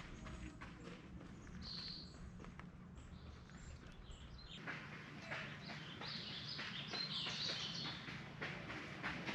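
Small birds chirping in short high notes over the quick, uneven footfalls of runners passing. The footfalls are busier in the second half.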